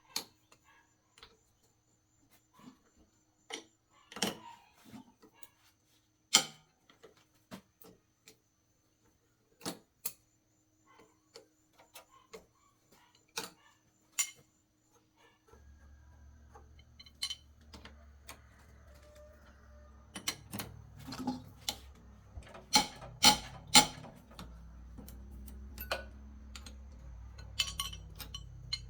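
Scattered metallic clinks and knocks of tools being handled on metal parts, sparse at first and coming faster later. About halfway through a low steady hum starts beneath them.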